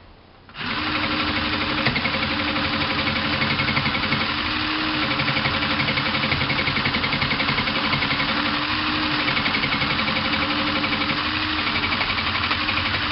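Sew Cool toy felting machine running, its small motor driving three needles up and down through folded felt: a steady, fast, even mechanical clatter with a held hum. It starts about half a second in and stops near the end.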